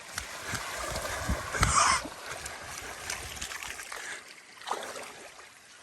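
Water splashing and sloshing in shallow water, with a louder splash just under two seconds in and quieter trickling after it.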